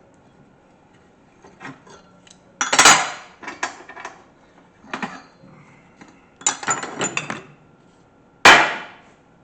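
Steel workpiece clanking on metal, struck or knocked a number of times, apparently being worked flat. The loudest ringing clanks come about three seconds in and again near the end, with quicker rattling knocks in between.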